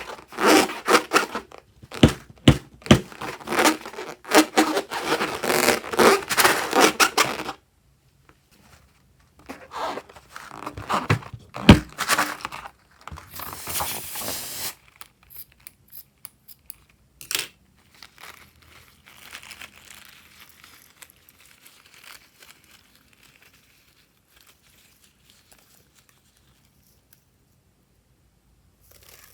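Wet crinkling and tearing sounds of slime being stretched and pulled. They come in dense bursts for the first seven seconds, again around ten to thirteen seconds with one sharp snap, then a short hiss, then only faint rustles.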